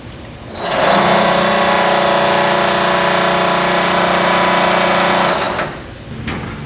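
Reel-O-Matic CPT-009 cable prep table's four powered cable cutting heads cycling, driven by a motor. The motor hum and whine builds up about half a second in, runs steadily for about five seconds, then winds down near the end.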